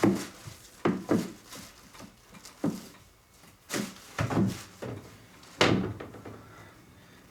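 A series of irregular knocks and thuds, about nine of them, each with a short ringing tail and the loudest about five and a half seconds in.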